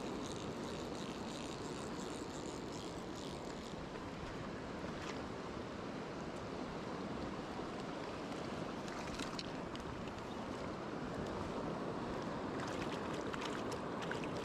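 River water flowing steadily: a constant, even rush of current, with a few faint light splashes.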